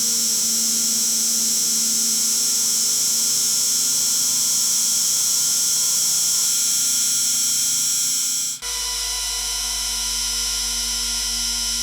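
Grain auger motor running steadily with a high, hissing whine over fixed tones. About eight and a half seconds in, the sound drops out for an instant and comes back with a different set of tones and a deeper hum.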